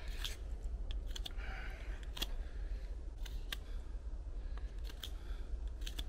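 A small knife whittling a hardwood wedge: short, sharp cutting clicks at uneven intervals as shavings come off the wood.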